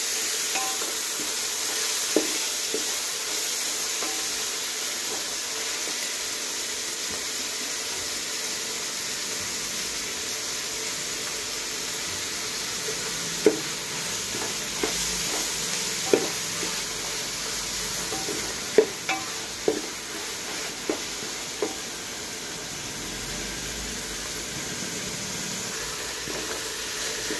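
Chopped tomatoes, onions and green chillies sizzling in oil in a metal pot as they are stirred with a spoon: a steady frying hiss, with occasional sharp clinks of the spoon against the pot, most of them in the second half.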